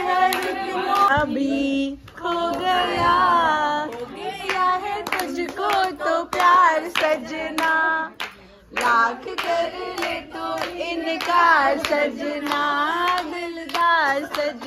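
Singing of a song to steady rhythmic hand clapping, with a brief break about eight seconds in.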